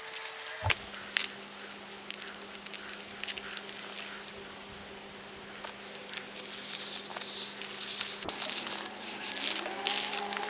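Self-adhesive airtight membrane tape being peeled off its release liner and rubbed down, with crackling, rustling and ripping, over a steady low hum.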